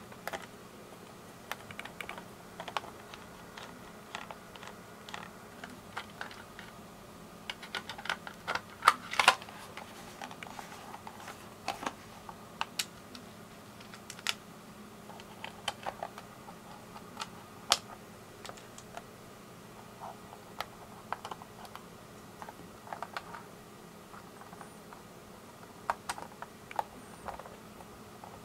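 Scattered clicks and light knocks of a Kodak EasyShare Series 3 dock's plastic housing being handled and fitted back together, with a screwdriver driving small screws into it. A quick cluster of louder clicks comes about eight to ten seconds in.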